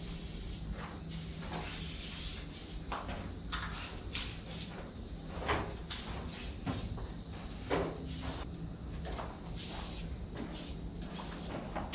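Aerosol spray paint cans hissing in short bursts and longer strokes, with a few sharp clicks in between.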